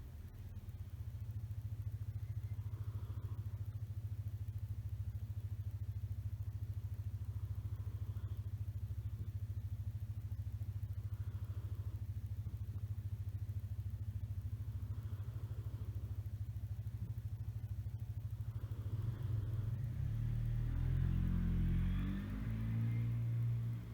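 A sleeping cat's steady low rumbling breath noise, with a faint higher whistle about every three to four seconds. Near the end it turns louder and less even.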